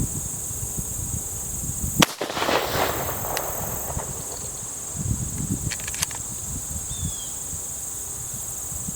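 A single shotgun shot about two seconds in, a sharp report with a rolling echo after it. A steady high insect drone runs underneath.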